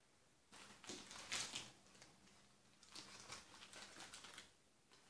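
Faint rustling and light tapping of a green cardstock favour box being unfolded and handled, in two spells, about a second in and again around three seconds in.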